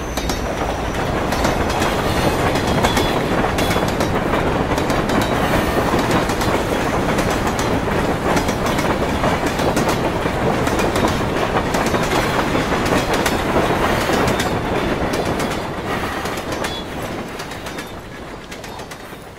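A train crossing a railway bridge: a steady rumble with the wheels clattering over the rail joints, fading away over the last few seconds.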